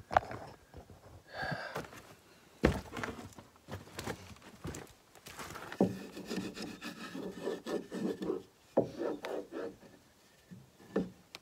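A block of smooth wood rubbed in repeated scraping strokes over self-adhesive window flashing, pressing it flat onto the log window opening, with a sharp knock of wood on wood about three seconds in. The rubbing comes in a run of irregular strokes from about halfway through.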